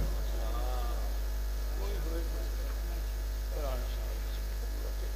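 Steady low electrical mains hum from the microphone and sound system, with faint voices of people nearby a few times.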